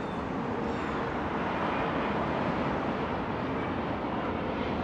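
Steady hiss of road traffic from passing cars and trucks.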